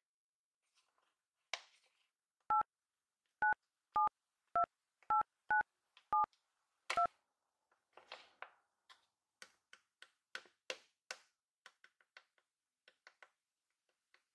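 Telephone keypad touch-tones: eight short two-tone dialing beeps in quick succession, as buttons of a phone keypad are pressed. They are followed by a run of quiet quick taps.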